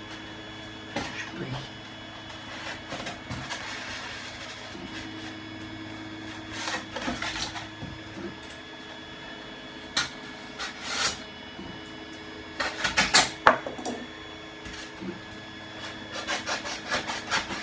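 White polystyrene foam board being handled: scratchy rubbing and scraping of the foam at intervals, loudest a little past halfway through, with a quick run of scratches near the end.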